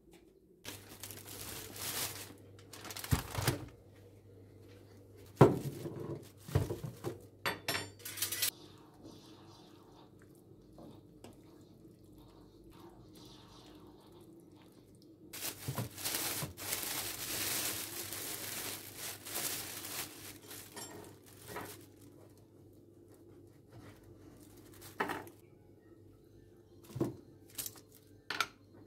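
Kitchen work sounds: dishes and utensils clattering and knocking, with a long stretch of crinkling and rustling partway through and a few more knocks near the end.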